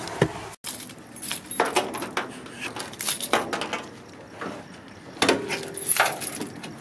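Keys jingling and a run of irregular clicks and knocks as a car bonnet is released and lifted, with the loudest knocks near the end.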